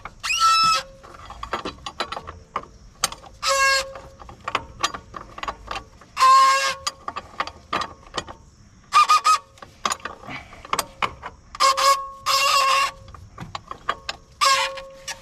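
24 mm wrench tightening a billet aluminium fuel filter cap on a Ford 6.0 Powerstroke diesel, turned down slowly on its O-ring: a run of sharp clicks with repeated short squeaks of under a second each.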